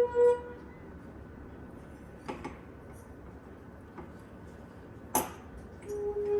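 Water-tuned crystal wine glass singing under a wet finger rubbed around its rim, a steady ringing tone with overtones that stops just after the start. A few faint knocks follow, with one sharper click about five seconds in, and near the end a glass starts singing again at a slightly lower pitch.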